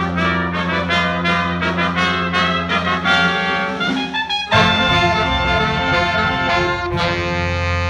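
Jazz big band of saxophones, trumpets and trombones playing a quick run of short ensemble notes, then hitting a loud held chord about halfway through and a second held chord near the end.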